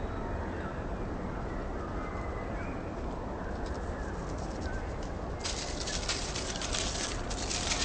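Jungle ambience with scattered bird chirps and calls over a steady low rumble. About five and a half seconds in, a loud crackling hiss starts and runs on.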